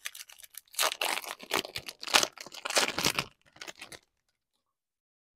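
Foil baseball card pack wrapper being torn open and crinkled, in a run of sharp rustling, crackling bursts; the sound cuts off completely about four seconds in.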